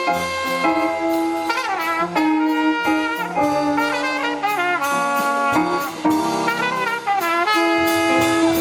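Jazz band playing, held notes and moving lines stacked together in a full ensemble sound.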